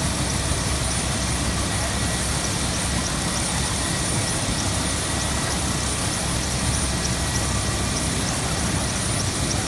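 Helicopter running on the ground with its engine and rotor kept turning: a steady, even noise.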